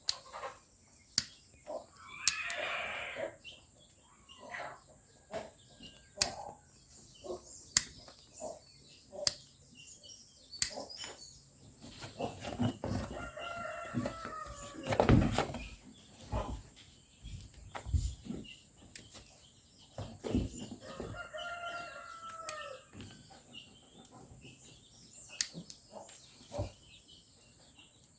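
A rooster crowing twice, each crow a drawn-out arched call, with sharp clicks throughout and a heavy thud about halfway through.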